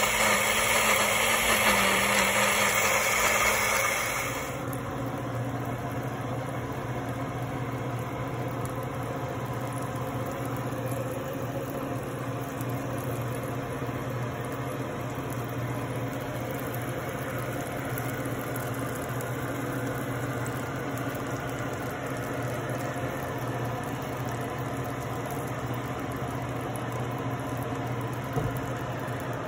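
Countertop blender running, whirring through sliced bananas and oats for about four seconds before cutting off. After that a steady low mechanical hum carries on.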